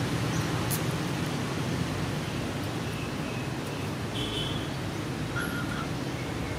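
Steady outdoor background noise, a low rumble under a hiss, with a few faint, short high chirps. The kittens' play-fighting makes no distinct sound.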